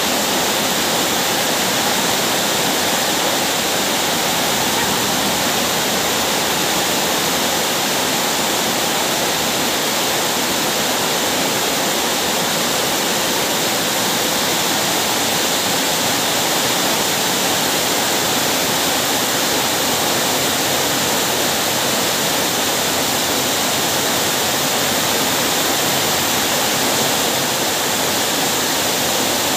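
Heavy rain falling steadily, an even hiss with no letup.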